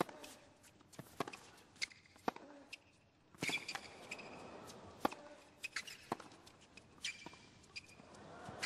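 Tennis rally on a hard court: sharp pops of rackets striking the ball about once a second, short high squeaks of players' shoes on the court surface, and stadium crowd noise that swells about three and a half seconds in.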